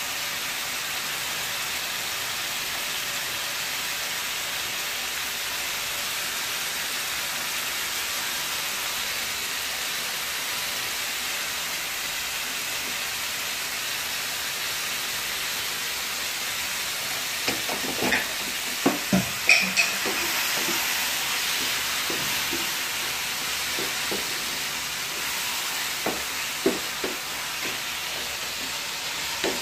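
Pieces of liver frying in a metal pan with a steady sizzle. From about halfway through, a spoon stirs the pan, and its knocks and scrapes against the metal come over the sizzling, loudest for a couple of seconds just after they start.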